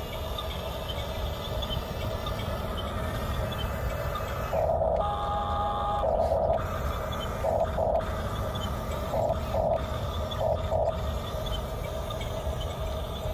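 Electric drive motors and gearbox of a radio-controlled toy bulldozer whining steadily as it crawls on its tracks, the whine swelling briefly about five times as it drives harder, over a steady low rumble.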